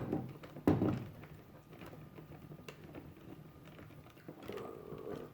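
Two sharp knocks less than a second apart, then scattered light clicks and taps of small objects and tools being handled on a work surface.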